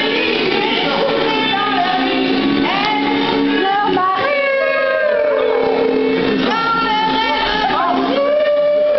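A group of young men and women singing a song together, loudly, with several long held notes.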